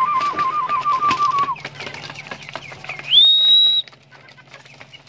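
Pigeons pecking grain from plastic trough feeders, a scatter of quick clicks, with a warbling whistle trilling for the first second and a half. About three seconds in, a loud high whistle swoops up and holds for under a second.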